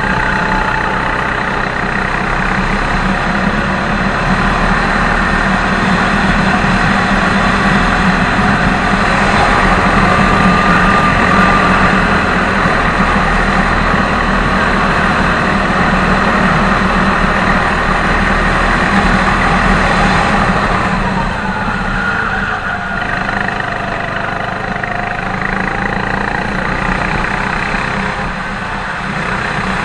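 Go-kart engine running at speed, heard from on board. Its pitch dips and rises again about three-quarters of the way through as the kart slows for a corner and accelerates out.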